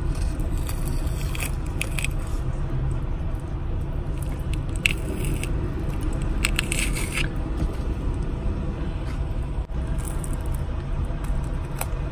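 Steady low rumble of a running vehicle, with scattered light clinks and rattles over it.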